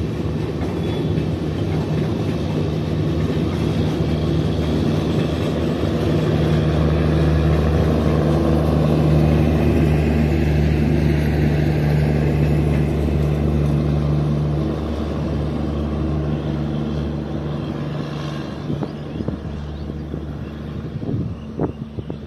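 Indian Railways passenger train's coaches rolling past over a railway bridge: a steady rumble of wheels on rails with a low hum, loudest about nine or ten seconds in, then slowly fading as the end of the train draws away.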